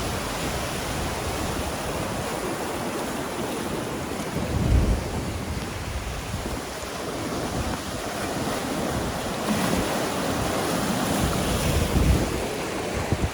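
Sea surf washing and breaking against volcanic rocks, a steady rushing wash. Wind buffets the microphone in low gusts, strongest about five seconds in and again near the end.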